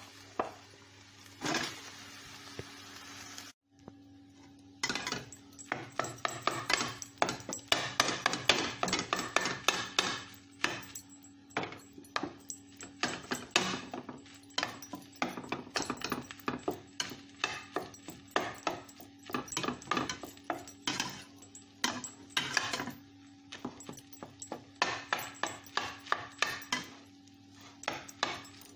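A cooking utensil stirring fried rice in a metal pan, with quick irregular scrapes and clacks against the pan several times a second and a light sizzle. It starts about five seconds in.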